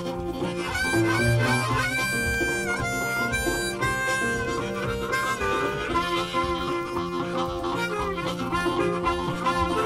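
Background music: an upbeat blues tune led by harmonica, with held and bending notes.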